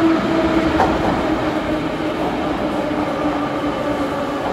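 A Moscow Metro 81-717/714 ('nomernoy') train pulls in along the platform with a steady rumble of wheels on rail. Its motor whine slowly drops in pitch as the train slows. There is a single click a little under a second in.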